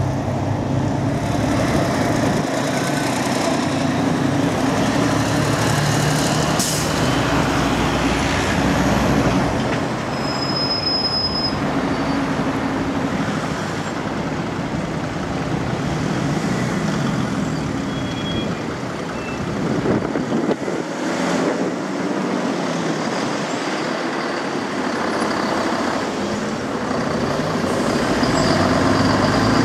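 Diesel engines of a city bus and then a long white coach running at low speed as they pull out and turn, with street traffic around. A brief high thin tone sounds about ten seconds in.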